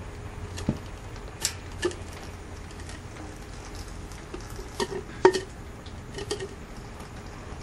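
Plastic bottle and hose being handled, giving a scattering of short, sharp clicks and knocks, the loudest a little past halfway, over a steady low hum.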